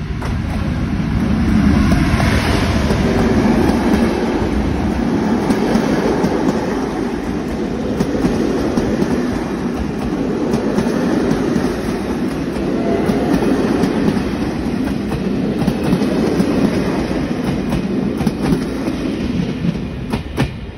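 Passenger train hauled by ONCF electric locomotive E-1473 passing close by: the noise swells over the first couple of seconds as the locomotive arrives, then the coaches' wheels clatter steadily over the rails until the last coach goes by near the end.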